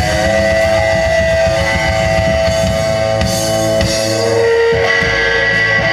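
Rockabilly band playing live, guitar over a drum kit. About four seconds in, the beat drops away under a held note.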